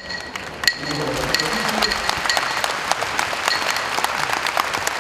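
Arena audience applauding, a dense steady patter of many hands clapping, with one sharp clack that rings briefly under a second in.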